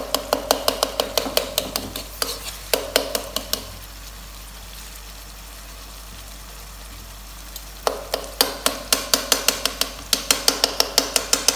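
Metal tongs scraping and tapping against a nonstick wok in quick repeated strokes, several a second, as tomatoes are mashed into frying onions, with a faint sizzle underneath. The strokes pause for about four seconds mid-way, then resume.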